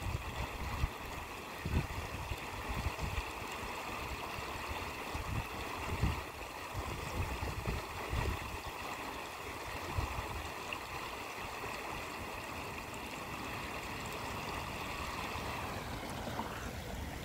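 Floodwater rushing over a weir in a steady roar, with gusts of wind buffeting the microphone in irregular low thumps.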